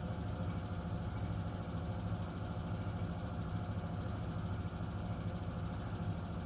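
Miele W1 front-loading washing machine spinning its drum at a steady speed during the intermediate spin after the main wash: an even low hum of motor and drum.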